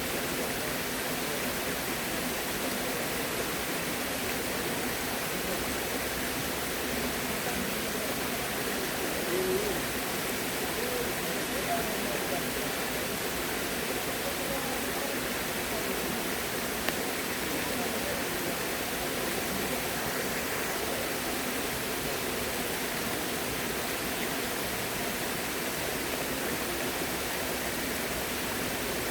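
Steady rush of flowing water, an even hiss that holds without change.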